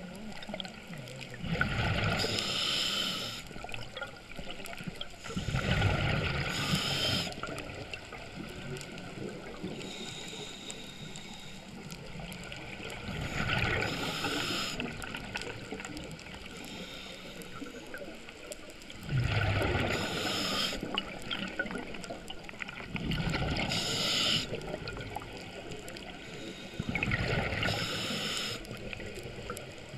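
Scuba diver breathing underwater through a regulator: a hissing inhale and a rush of exhaled bubbles, six loud breaths a few seconds apart over a steady low water hiss.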